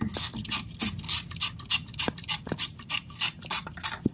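3/8-drive ratchet with a 10 mm deep socket clicking in quick, even strokes, about three to four clicks a second, as a bolt is run in on the crank sensor cover.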